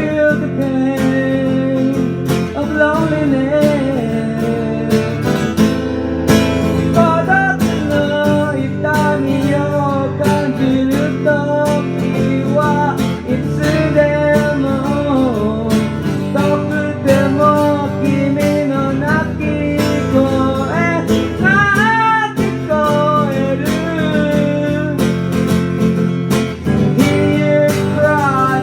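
Acoustic guitar strummed steadily in a live song, with a wavering sung melody over it.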